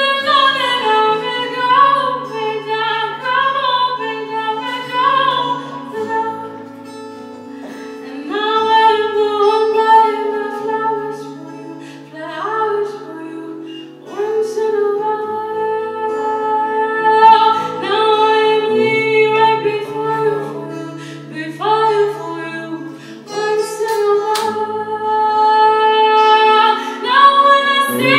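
A woman singing long held notes that slide up into pitch, with an acoustic guitar accompanying her.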